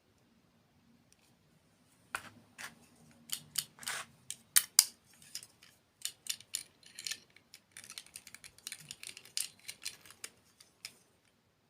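Close-miked crunching and chewing of crisp food: an irregular run of sharp crackling crunches, several a second, starting about two seconds in and stopping shortly before the end.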